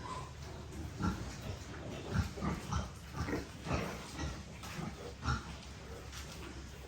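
Pigs grunting: a quick run of short grunts starting about a second in and easing off after about five seconds.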